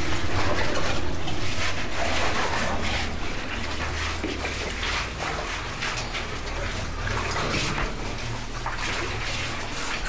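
Water splashing and sloshing irregularly as cavers crawl on their bellies through shallow, muddy water in a low cave passage, with a steady low hum underneath.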